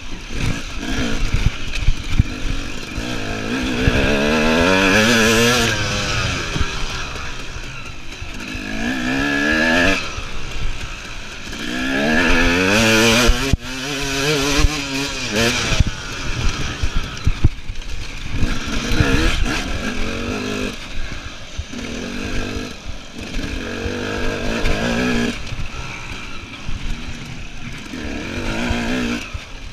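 KTM EXC enduro motorcycle engine being ridden hard, its revs climbing and dropping again and again: several long pulls and shorter blips of the throttle.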